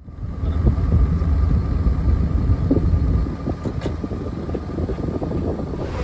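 Wind rumbling on the microphone over the steady hum of a fishing boat's engine at sea, starting abruptly at a cut.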